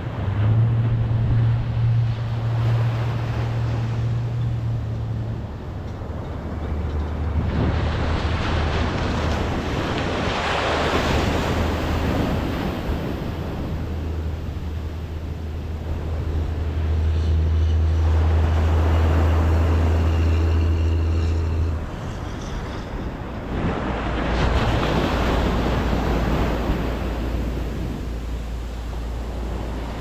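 Atlantic Ocean surf: waves breaking and washing up the beach in slow surges, two big ones about 14 seconds apart, with a steady low wind rumble on the microphone.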